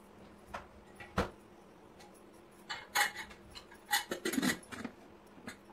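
Stainless steel pressure cooker lid being fitted onto the pot: a few separate metal clinks, then a cluster of clanks and scrapes about three to four and a half seconds in.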